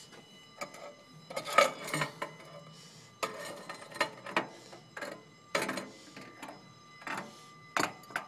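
Hard objects clinking and clattering, about eight sharp knocks spread through, over a faint steady high whine.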